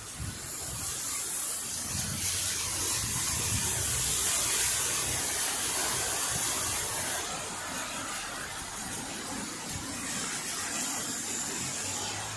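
Street traffic on a wet, slushy road: a steady tyre hiss that swells over the first few seconds and eases after about seven seconds, with a low engine rumble beneath.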